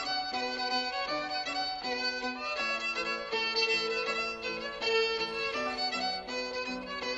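Fiddle music: a quick tune of short notes changing several times a second.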